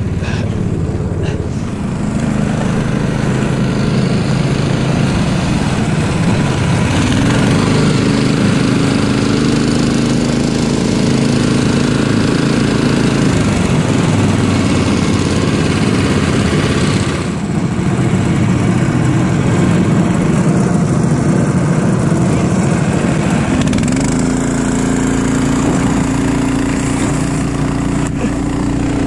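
Motorized snow tug (motosobaka) engine running under load while towing a sled through snow. Its pitch rises and falls with speed, with a brief dip a little past halfway, and it settles into a steadier, higher note near the end.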